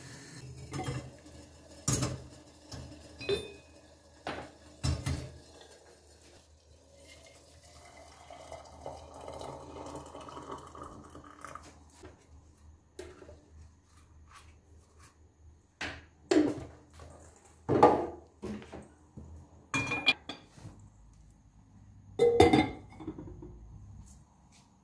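Kitchen crockery clatter: a series of separate clinks and knocks of ceramic and metal as a plate with a fork and a porcelain teapot and its kettle are handled and set on a gas stove. The loudest knocks come in the second half.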